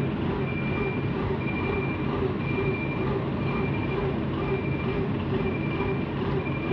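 Kobelco RK160-2 rough terrain crane's diesel engine running steadily while it works, with a high warning beeper sounding about once a second.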